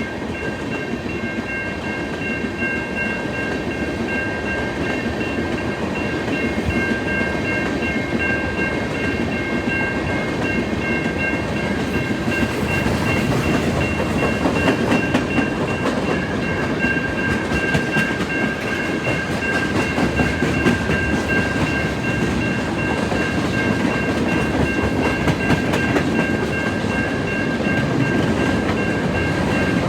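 A train rolling past, its wheels clicking over the rail joints and growing slowly louder, with several steady high ringing tones held over it; one of the tones stops about a third of the way in.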